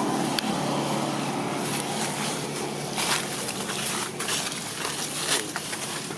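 Dry leaf litter crackling and rustling under macaques moving about, with scattered short crackles. A steady low engine hum of passing traffic runs underneath and fades after the first couple of seconds.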